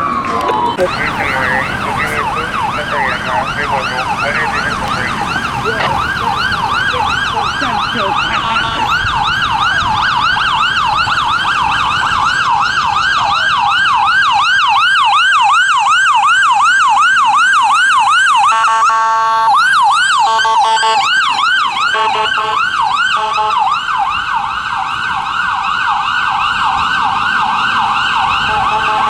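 Fire apparatus siren on a fast yelp, sweeping up and down about four times a second. About two-thirds of the way through it is broken by several short horn blasts.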